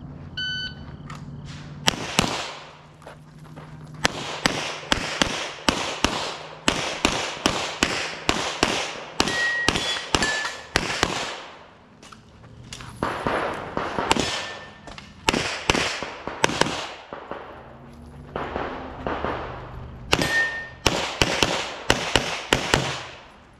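Shot timer start beep, then a long string of semi-automatic pistol shots fired in rapid pairs and bursts while the shooter engages targets on a USPSA stage. Short pauses about three, twelve and eighteen seconds in break up the shooting.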